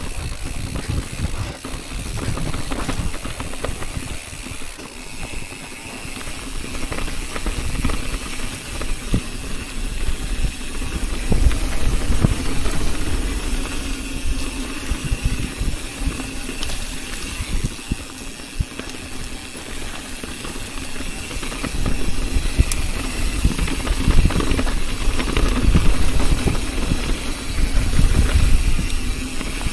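Mountain bike riding over a rocky dirt trail: tyre noise, the bike rattling over rocks and wind rushing over the camera microphone, a steady rumble that swells and eases, louder near the middle and toward the end.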